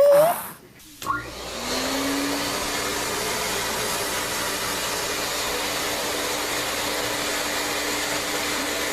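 A household appliance motor starts about a second in and runs steadily with an even rushing whir and a faint hum.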